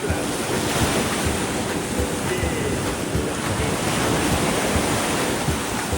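Ocean surf washing steadily onto the beach, with wind buffeting the microphone in gusts.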